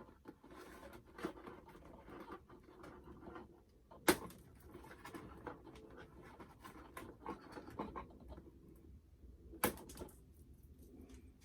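Small plastic doll accessories and their packaging being handled: rustling and light clicking, with two sharp clicks, one about four seconds in and one near the end.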